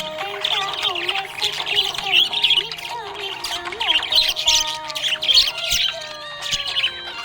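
Budgerigars chirping and chattering without a break, many quick high calls running over one another.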